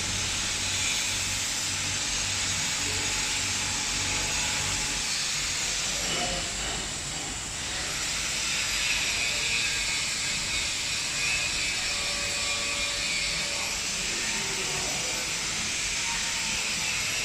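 Cable coiling and wrapping machinery running steadily, a mechanical hiss with a low pulsing hum in the first few seconds.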